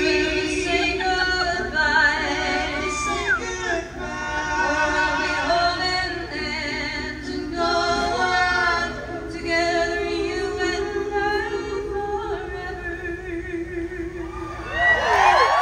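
Live three-part vocal harmony, a woman and two men singing together on long held notes, with an acoustic guitar underneath. About a second before the end the audience breaks into cheering, whistles and whoops.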